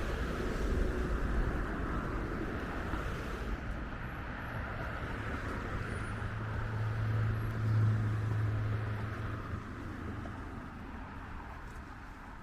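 Street traffic: a steady wash of tyre and road noise. About six seconds in a passing vehicle's low engine hum rises, peaks near eight seconds and fades, and the traffic noise eases off toward the end.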